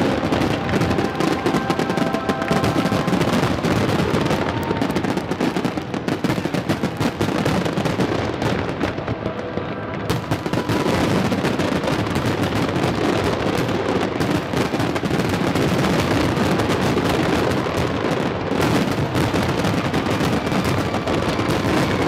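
Finale barrage of aerial firework shells: a dense, unbroken run of rapid bangs and crackle, easing slightly about halfway through before building again, with music faintly underneath.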